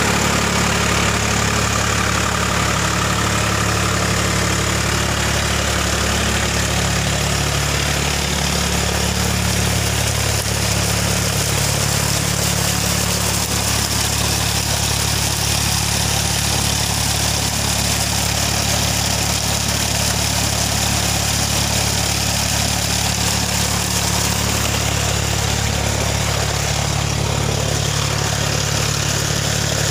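Tractor engine running steadily at a constant speed, driving a generator: an even engine drone with no change in pace.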